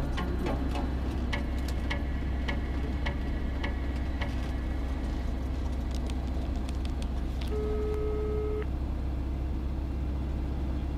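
Light sport aircraft engine running steadily at low power while the plane taxis, a constant low drone with faint ticking. About two-thirds of the way through, a steady two-pitch beep sounds for about a second.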